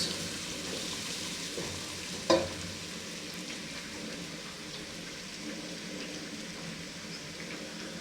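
Onions, ginger and garlic sizzling steadily as they fry in hot oil while being stirred, with one sharp knock against the pan about two seconds in.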